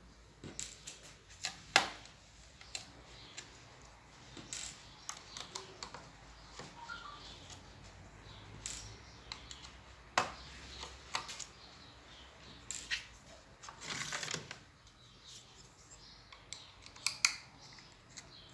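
Irregular clicks, taps and light knocks of hands working on a Dell Latitude E6420 laptop and its drive parts, with a brief scrape about fourteen seconds in.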